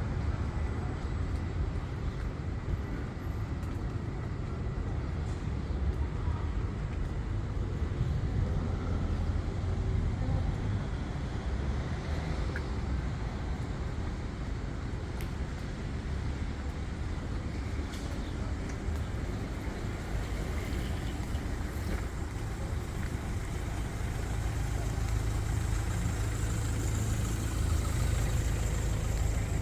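Street traffic: a steady low rumble of road vehicles with a haze of city noise, swelling a little near the end.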